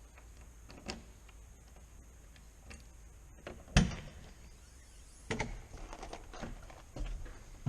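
Scattered clicks, then a single loud knock about four seconds in, followed by a run of clattering clicks and knocks; a low rumble comes in near the end.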